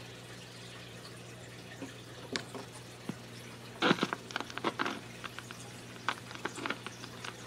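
Old vinyl record playing with no voice on it: a steady low hum and faint surface hiss, with scattered clicks and crackles that thicken into a dense run of clicks about four seconds in.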